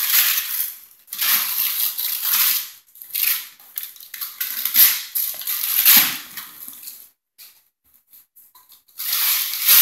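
Gift wrapping paper being torn off a present by a toddler's hands, in a run of ripping and crinkling bursts, with a lull of about two seconds near the end before one more burst.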